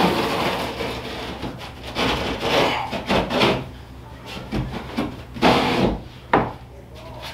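A sheet of cement board scraping and bumping against the wooden wall studs as it is shifted into place by hand: irregular rough scrapes and a few sharp knocks.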